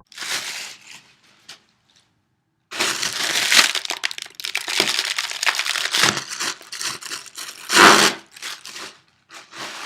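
Plastic air-filled packing pillows being squeezed, crinkling and crackling as the plastic strains, with louder snaps as they give way, the loudest near the end.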